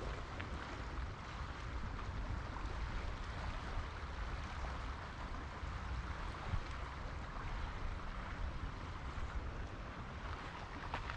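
Steady rushing outdoor noise, a hiss over a low rumble, with a few faint ticks and no distinct events; wind and distant water cannot be told apart.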